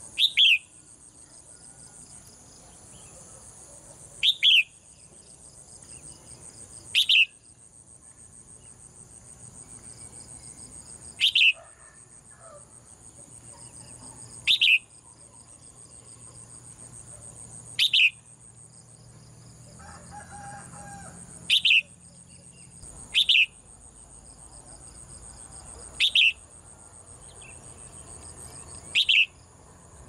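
Red-whiskered bulbul giving a short, sharp, falling call about every three seconds, ten times in all. Under the calls runs a steady high insect buzz.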